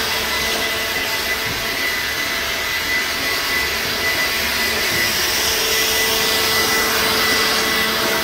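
Bosch leaf blower running steadily at full speed: a loud rush of air with a steady whine.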